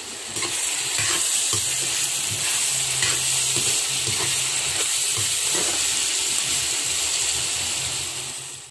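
Diced onions sizzling steadily as they fry in hot oil in a wok, just turning light brown. A metal spatula stirs through them and scrapes the pan now and then. A steady low hum runs underneath.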